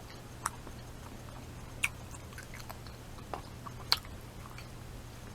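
Mouth sounds of someone chewing a pig in a blanket: a few scattered soft clicks and smacks, the sharpest about four seconds in, over a low steady hum.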